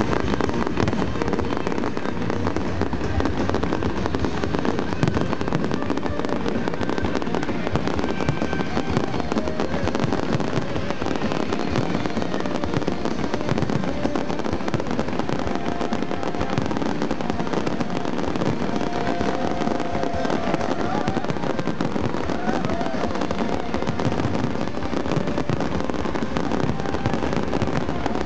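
Fireworks finale: many shell bursts and crackling effects overlapping in a dense, continuous volley with no let-up.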